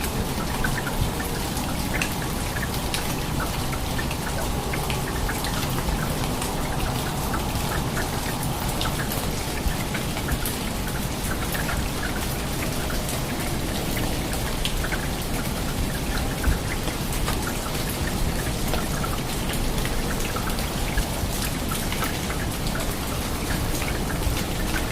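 Heavy rain falling steadily, a dense hiss with many individual drops ticking sharply on nearby surfaces.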